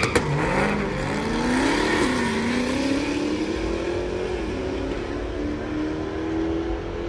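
A car launching and accelerating hard down a drag strip at full throttle. Its engine note climbs, drops back at gear shifts about two and four and a half seconds in, then rises slowly as it pulls away.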